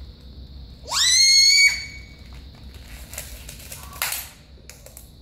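Small latex balloon squealing as air is let out through its stretched neck: a pitch that rises quickly and then holds for most of a second before cutting off. About four seconds in there is a short burst of noise.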